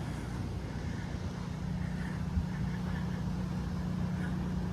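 Steady low rumble of a running engine, with a single soft knock about two and a half seconds in.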